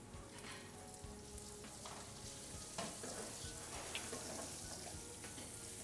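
Sliced onions sizzling in hot oil in a frying pan. From about two seconds in, a silicone spatula stirs them a few times.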